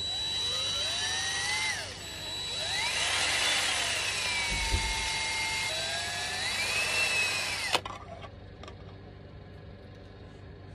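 Cordless drill boring a hole into a cast plastic antler piece, its motor whine rising and falling in pitch several times as the trigger and load change, then stopping abruptly with a click about eight seconds in.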